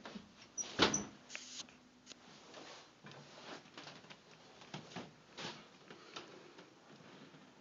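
Soft, irregular footsteps on carpet and handling knocks from a handheld camera being carried through a house, with one sharper knock about a second in.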